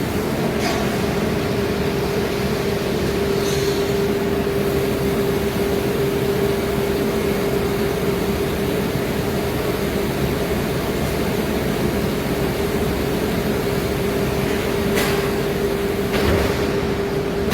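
CNC router cutting plywood: the spindle runs with a steady whine over a constant rushing noise, with a few brief sharper scrapes near the start and near the end.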